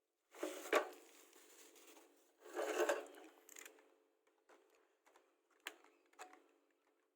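Packaging being handled: two bursts of rustling and scraping, followed by a few light clicks and taps.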